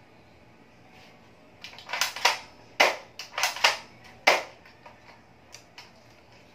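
Spring-type airsoft M4-style rifle being worked and fired: a quick string of about eight sharp plastic clacks and snaps about a second and a half in, then a few faint clicks.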